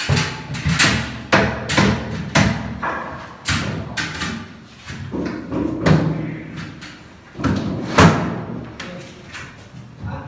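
Irregular knocks and thuds of wooden wardrobe cabinet panels and doors being handled and fitted into place, the loudest knock about eight seconds in.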